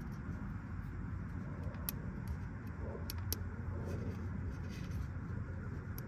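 Steady low background rumble, with a few light clicks and taps around two and three seconds in as a small electrical part is handled and wiped with a cloth.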